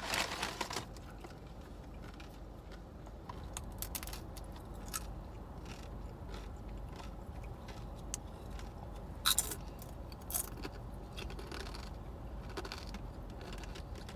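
Hard fried chips being crunched and bitten, with scattered short crackles, the loudest a pair about 9 and 10 seconds in, over the low steady hum of a car on the road.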